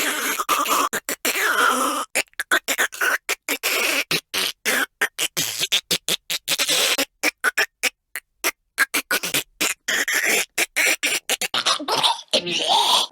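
Choking and gagging noises, cut up into many short stuttering fragments with sudden silent gaps between them.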